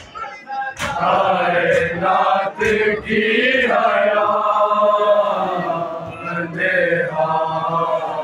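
Men's voices chanting an Urdu noha, a Shia mourning lament, sung in long held lines. In the first few seconds sharp slaps fall about once a second, in time with the chant, the rhythm of matam (chest-beating).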